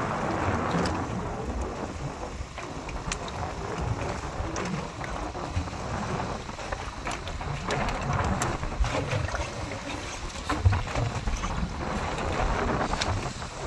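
Wind and sea noise aboard a small fishing boat: an uneven rushing and low rumble, with scattered sharp knocks.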